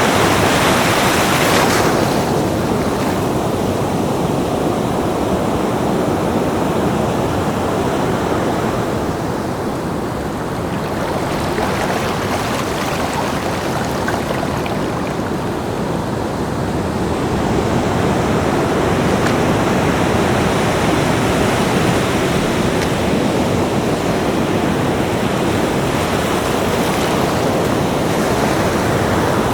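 Ocean surf breaking on a beach: a continuous wash of waves that swells and ebbs slowly, easing off in the middle before building again.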